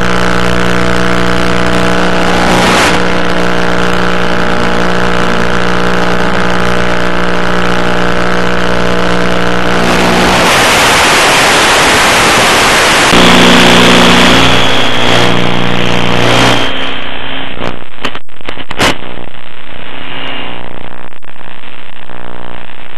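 The motor and propeller of an FPV model plane drone steadily in flight. About ten seconds in, the sound turns into a loud hiss of radio static as the video link drops out. The drone comes back for a few seconds after an abrupt jump, and a few sharp clicks follow.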